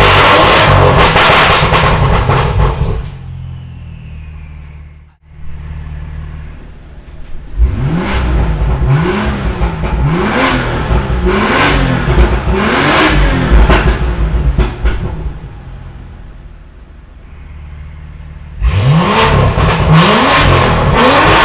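Turbocharged straight-six of a BMW M2 with a valved catback exhaust and catless downpipes, revved in a series of quick blips. Loud open-valve stretches alternate with two quieter, muffled stretches as the exhaust valves are switched, and the sound jumps back to full loudness abruptly near the end.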